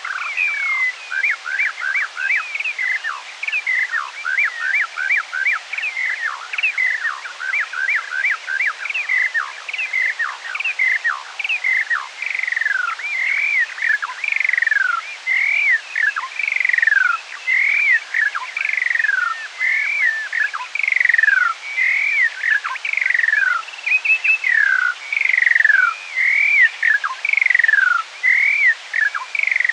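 Skylark song played back at half speed, so pitched an octave lower: an unbroken run of quick chirps and trills. About twelve seconds in it settles into a string of slurred notes that each fall in pitch, about one a second.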